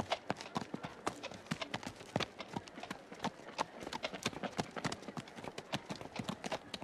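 Horses' hooves clip-clopping at a walk on a stone-paved street, a steady run of sharp hoof strikes several times a second.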